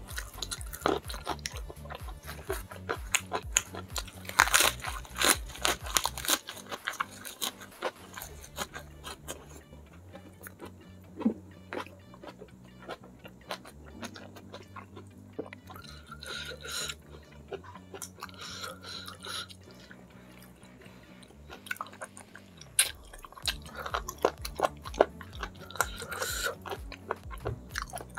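Close-up mouth sounds of eating by hand: wet chewing, smacking and crunchy bites of curried fish head, red snapper in gulai sauce, with rice. Background music with a steady low bass line runs underneath.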